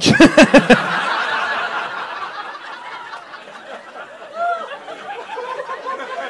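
A loud burst of quick 'ha-ha' laughter close to the microphone in the first second, then a comedy club audience laughing together for several seconds.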